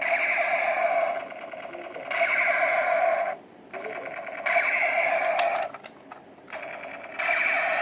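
Electronic firing sound effect from a toy gun's small speaker: a rapid buzzing rattle played in bursts about a second long, over and over, alternating louder and softer with short gaps.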